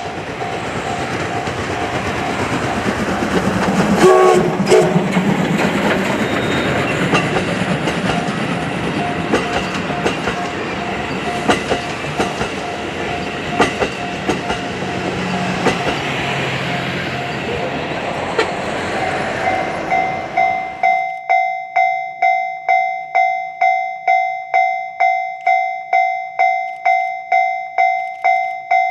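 Steam-hauled train passing close by: a steady rumble and hiss with irregular clicks of wheels over rail joints, loudest about four seconds in. The train noise stops suddenly about twenty seconds in, leaving a level-crossing bell ringing about twice a second.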